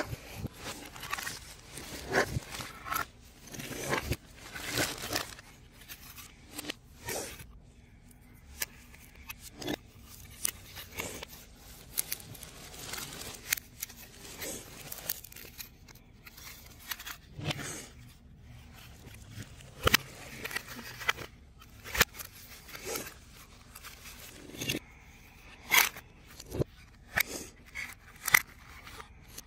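3D puzzle pieces being handled and fitted together: irregular sharp clicks, with short scrapes and crinkles between them.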